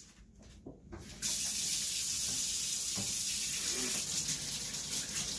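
Kitchen faucet turned on about a second in, water running steadily into the sink as hands are washed under it.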